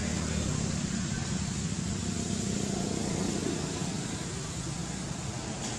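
Steady outdoor background noise: a low rumble with an even hiss above it, slightly louder in the first half and easing off toward the end.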